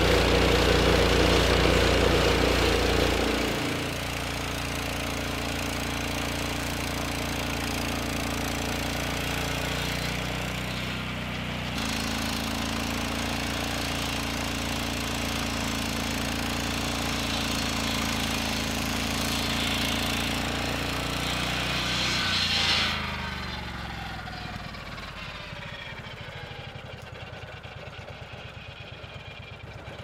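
Lucas Mill swing-blade sawmill running, its engine-driven circular blade sawing through a Douglas fir log to make timbers. The steady engine drone is loudest in the first few seconds; over the last several seconds its pitch falls and it quietens as the engine winds down.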